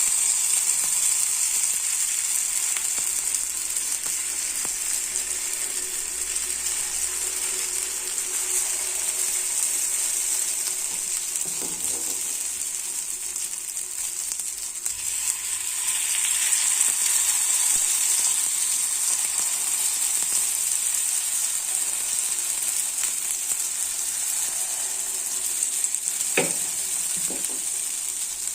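Paddu batter frying in hot oil in the cavities of a paddu (appe) pan, a steady sizzle. A few short knocks come about midway and near the end.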